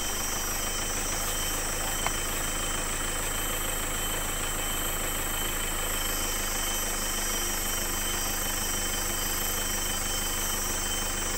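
A 4x4's engine idling steadily, heard from inside the cabin, with a single small click about two seconds in.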